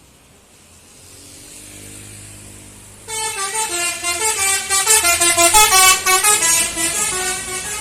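Tour bus's telolet musical air horn playing a quick melody of stepping tones over the bus's engine. It comes in loud about three seconds in, after a fainter tune.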